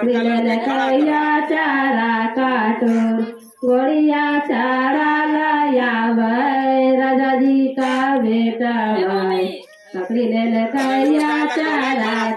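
A high voice singing a melody with no instruments, in long phrases broken by two short pauses, about three and a half and ten seconds in.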